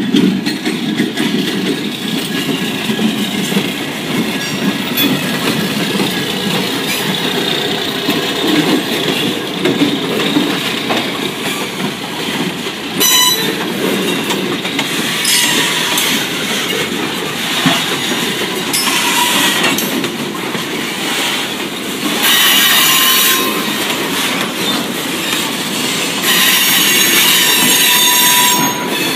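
GMTX 9014 diesel locomotive rumbling past slowly at close range, pulling freight cars that roll by after it with wheels clicking over the rail joints. In the second half the wheels squeal against the rails in stretches, and these are the loudest parts.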